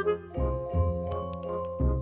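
Background music: a tune of short pitched notes over a regular low bass beat.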